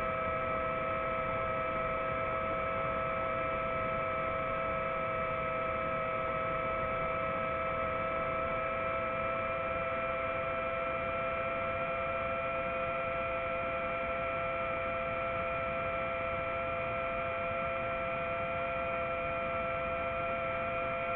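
Multirotor drone's motors and propellers heard from its onboard camera while it hovers: a steady whine of several pitches over airy rushing noise.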